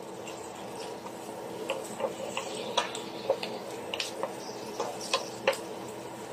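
Wooden spatula knocking and scraping against a stainless steel frying pan while stirring ham and mushroom slices, giving irregular sharp clicks, with a steady hum underneath.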